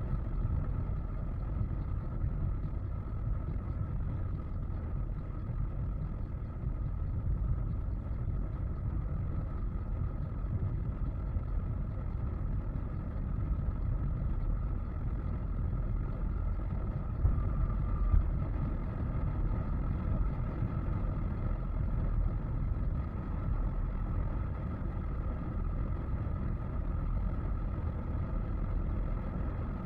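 Car driving at highway speed: a steady low rumble of road and engine noise, with one brief louder bump about 18 seconds in.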